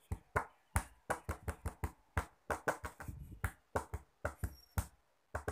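A rapid, irregular series of short, sharp taps or clicks, roughly four a second.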